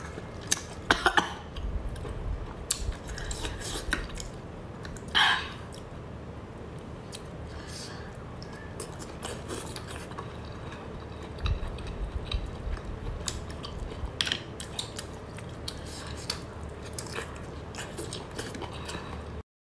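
Abalone shells clicking and scraping against a plate as they are handled, with scattered sharp clicks and eating sounds; the sound cuts off suddenly near the end.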